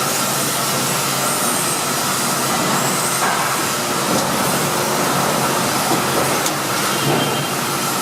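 Hydraulic press brake running steadily, a 1985 Cincinnati 175-ton CNC machine: a constant hum with a steady high tone over it.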